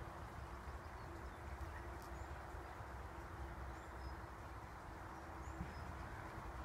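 Small woodland birds giving short high chirps here and there, over a steady low rush of outdoor background noise with a faint steady hum.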